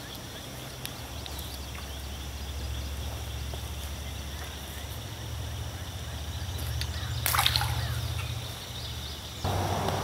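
A baited fishing hook and line plopping into the river on a cast: one short splash about seven seconds in, over a low steady hum.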